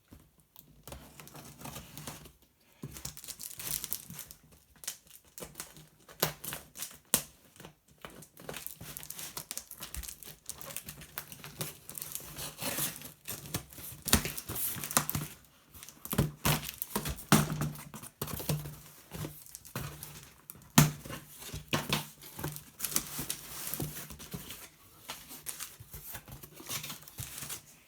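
Packaging being torn open and unwrapped by hand: paper and plastic wrapping crinkling and rustling, with sharp tearing and crackling noises scattered throughout.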